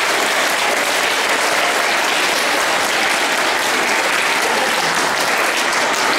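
A large audience of schoolchildren and adults applauding steadily.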